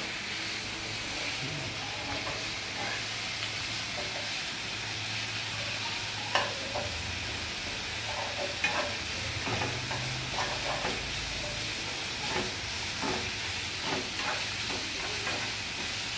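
Beef shank sizzling as it is stir-fried in a frying pan, a steady hiss with the stirring utensil scraping and tapping against the pan now and then.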